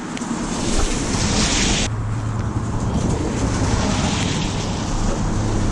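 Wind buffeting the microphone, with a hiss that cuts off suddenly about two seconds in, when a steady low hum starts.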